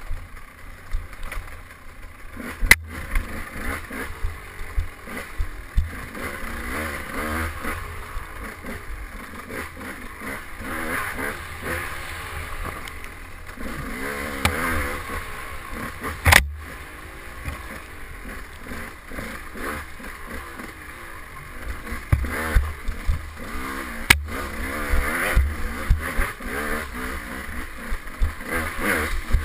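KTM 200 XC two-stroke dirt bike engine revving up and down as it is ridden hard, the pitch rising and falling constantly. Three sharp knocks cut through it, about three, sixteen and twenty-four seconds in.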